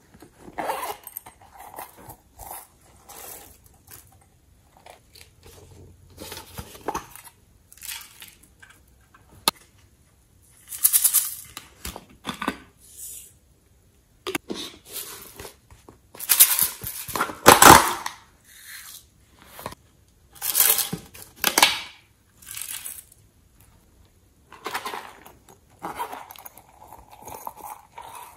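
Small plastic cosmetic and glitter cases being handled and tipped out over a glass tray of slime: irregular bursts of clicking, scraping and crackly rustling, loudest a few times in the second half.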